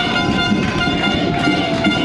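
Horns blowing long, steady, overlapping tones over crowd noise during a goal celebration.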